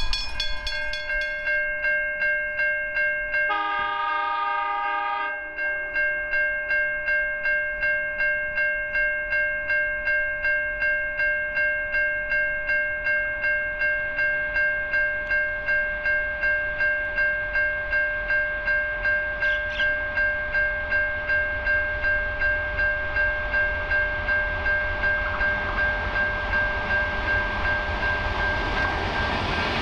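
Level crossing warning bell ringing steadily, about two strokes a second. Once, about three and a half seconds in, an approaching diesel freight locomotive sounds its multi-tone horn for under two seconds; near the end the train's low rumble grows as it nears.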